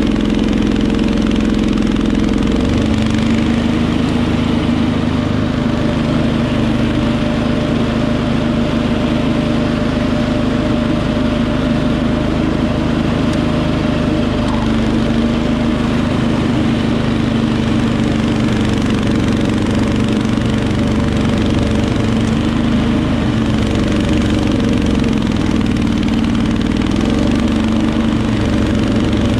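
Wheel Horse 310-8 garden tractor's engine running steadily at working speed, driving its front-mounted snowthrower through heavy, sand-like snow. Its pitch shifts slightly about two to three seconds in.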